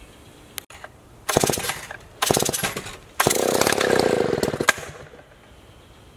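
Stihl 090 two-stroke chainsaw being started: it fires in three short bursts, the last about a second and a half long, and dies out after each one.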